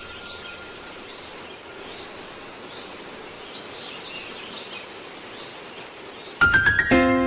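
Steady outdoor background hiss with faint high chirps. About six seconds in, a quick rising run of chime-like notes starts music, which then rings on in held notes.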